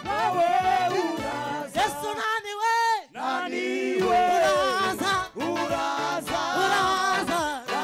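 Gospel worship song: several voices singing together, with musical accompaniment.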